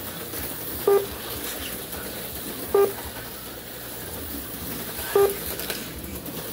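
Three short electronic beeps at irregular intervals, plausibly a slot car lap counter registering cars crossing the line, over the steady hiss of HO slot cars running on the track.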